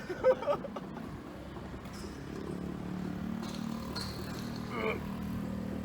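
Two short sharp knocks just after the start, then the steady low hum of a vehicle engine running in the background.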